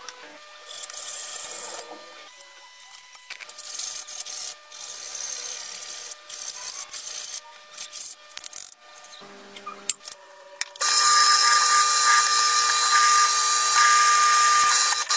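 Hand filing in irregular rubbing strokes on a rusty steel part, then, about eleven seconds in, a small bench drill press drilling into metal with a loud, steady whine.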